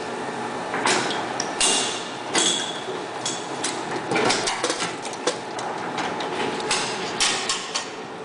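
Automatic walnut cake forming and baking machine running: a steady machine noise with repeated sharp metal clanks and knocks at uneven intervals as its moulds move through the cycle.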